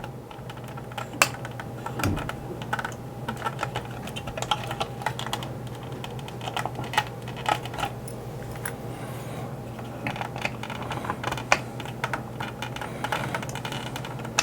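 Irregular small clicks and taps of a screwdriver working at the hard plastic landing gear covers of a vintage 1983 Skystriker toy jet, trying to pry them off, over a steady low hum.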